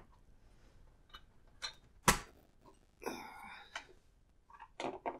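Memory DIMMs being seated in a Dell PowerEdge server's slots: a series of sharp clicks as the modules are pushed down and the slot tabs snap shut, the loudest about two seconds in. A short stretch of rubbing handling noise comes around three seconds in.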